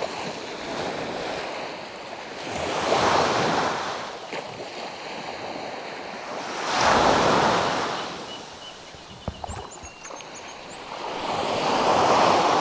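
Small waves washing up onto a sandy beach, three swells of surf each rising and fading about four to five seconds apart, with a few faint clicks between the second and third.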